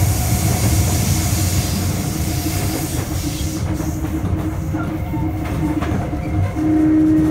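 Sotetsu 8000 series electric train (Hitachi GTO-VVVF) running, heard from inside the car: a steady rumble of wheels on rail with a low steady tone. About three and a half seconds in the high hiss falls away, and near the end a louder steady tone sets in.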